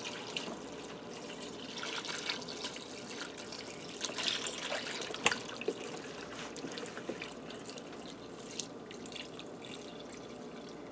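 Chicken broth pouring steadily from a carton into a pressure cooker pot onto frozen vegetables, with a few small clicks, the sharpest about five seconds in.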